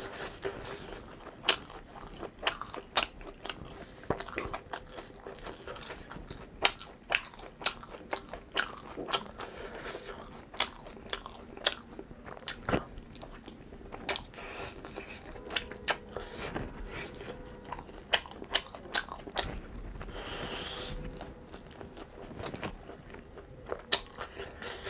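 A person biting and chewing crunchy food, with many sharp, irregular crunches and mouth clicks.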